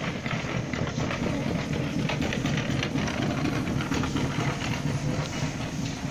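Double stroller's wheels rolling over the floor: a steady low rumble with light clicks.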